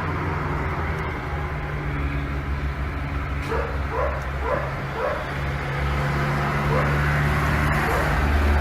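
A dog giving a string of short, high yips over a steady low engine-like hum.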